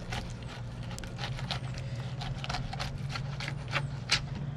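Knife filleting a crappie on a plastic cutting board: a run of irregular sharp clicks and crunches as the blade works through the fish and taps the board, the loudest about four seconds in. A steady low hum runs underneath.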